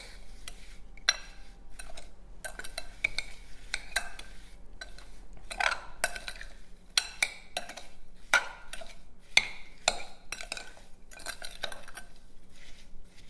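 Sliced strawberries with sugar being stirred in a bowl: a utensil scrapes and clinks against the bowl in irregular strokes.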